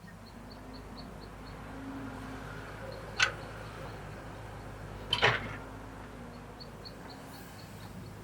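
Excavator working: a steady motor hum with two sharp metallic clanks, about three and five seconds in, and a faint rapid high ticking near the start and end.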